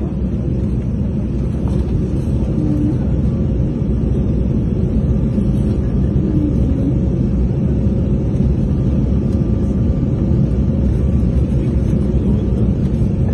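Airliner cabin noise heard from a window seat on a low approach: a steady rumble of the engines and rushing air, with a faint steady hum.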